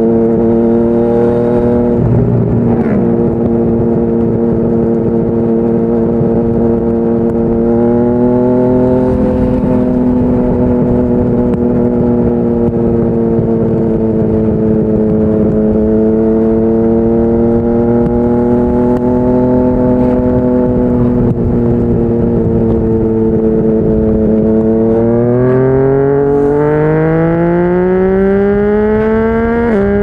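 Yamaha MT-09's inline three-cylinder engine through a Yoshimura R55 slip-on exhaust, heard from the rider's seat while cruising at a fairly steady engine speed with small throttle changes. About 25 seconds in the note climbs steadily as the bike accelerates.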